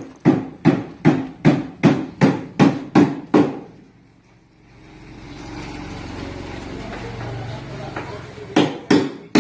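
Hammer blows on wood, about nine quick strikes at a little under three a second. They give way about four seconds in to a steady low mechanical rumble, and two more hammer strikes come near the end.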